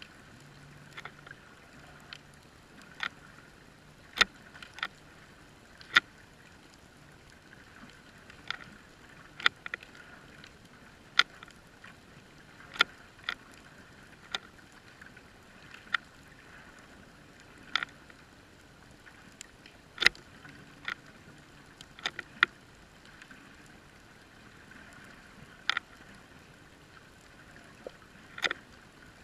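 Sharp, irregular clicks and snaps, roughly one a second, over a steady muffled hiss, picked up by a GoPro in an underwater housing on the sea floor.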